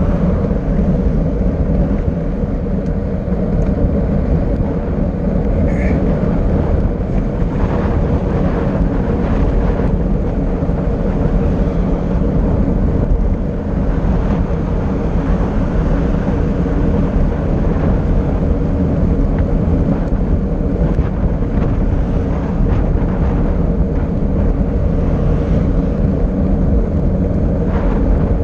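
Steady, loud wind rushing over the microphone during a fast downhill ride, with a short high squeak about six seconds in.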